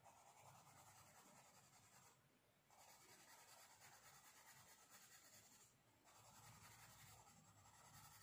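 Faint scratching of a pink colour pencil shading on a drawing-book page, in runs of strokes with two short pauses, about two seconds in and about six seconds in.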